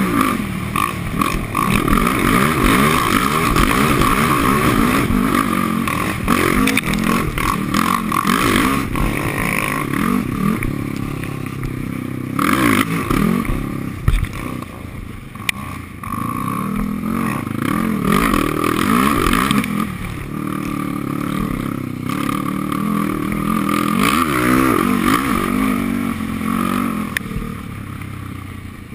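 Yamaha sport quad's engine revving up and down repeatedly while riding over sand, heard from the rider's helmet.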